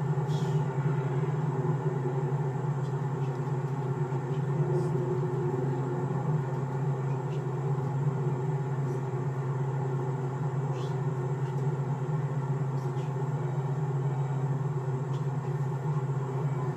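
Steady low rumble and hum inside a car standing still in traffic, with a few faint, irregular clicks.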